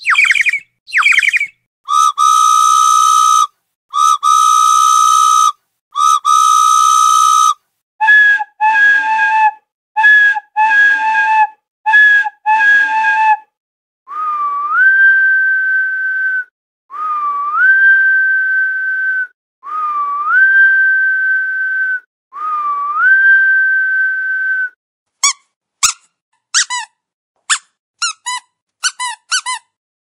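A sequence of whistle and squeak sound effects. It opens with three short falling chirps, then three long buzzy tones held about a second and a half each, then a run of short two-note beeps. Four whistles follow, each rising and then held for about two seconds, and near the end a quickening run of short falling chirps.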